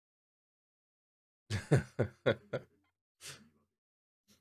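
A man's short burst of laughter, about five quick chuckles, ending in a breathy exhale.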